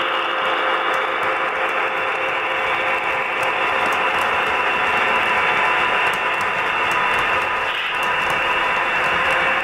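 HO scale model train running on a DCC layout: a steady mechanical hum and hiss with a constant whine, dipping briefly near the end.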